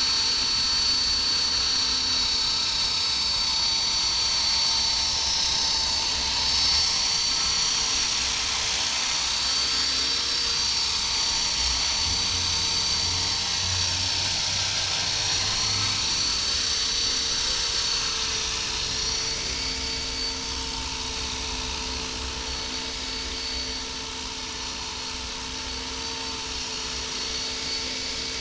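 Honey Bee King 2 electric RC helicopter with an Esky 3900 brushless motor hovering: the motor and rotor drive give a continuous high whine with a rotor buzz underneath, its pitch wavering slightly as the throttle and rotor speed are held for the hover. It grows a little quieter in the second half.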